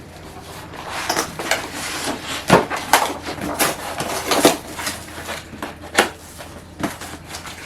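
Shipping packaging for a set of bumper plates being opened and handled: irregular rustling and scraping with a few sharp knocks, the loudest about two and a half, three and six seconds in.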